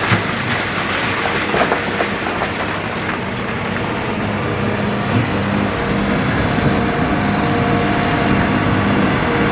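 Hitachi ZX200 hydraulic excavator working under load: the diesel engine runs steadily with a hydraulic whine. Several knocks of rock against the bucket come in the first two seconds, and a higher steady whine joins about two-thirds of the way through.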